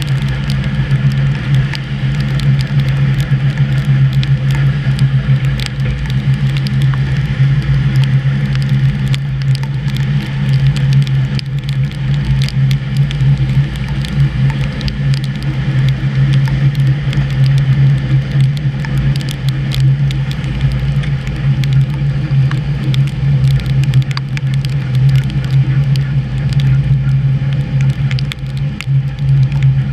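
An old HÉV electric suburban train running steadily, heard from the driver's cab: a constant low hum with a scatter of short sharp clicks and crackles.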